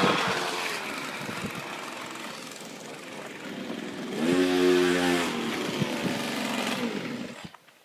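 Go-kart's small chainsaw petrol engine running, fading over the first couple of seconds, then revving up and back down about four seconds in. It drops away and cuts out near the end.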